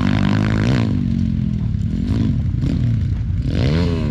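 Small single-cylinder four-stroke pit bike engine running under throttle, revving up briefly several times, with the strongest rise near the end.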